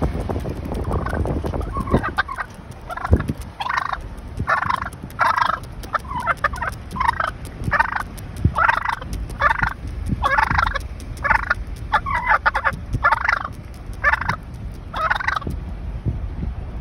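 Male wild turkey gobbling over and over in short calls, about one to two a second, while it keeps pace beside a slowly moving car. A steady low road rumble runs underneath. The calls stop shortly before the end.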